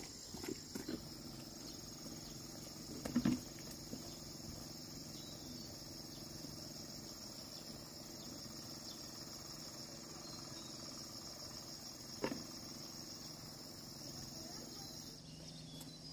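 Steady, high-pitched shrilling of an insect chorus that cuts off about a second before the end. A few dull thumps sound over it: one about three seconds in and another later on.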